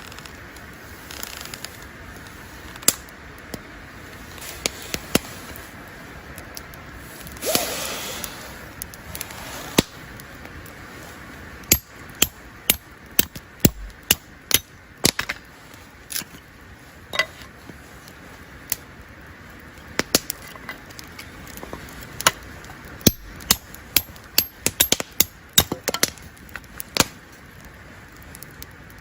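Campfire crackling: sharp, irregular pops and snaps over a soft steady hiss, with a brief louder rush about seven and a half seconds in.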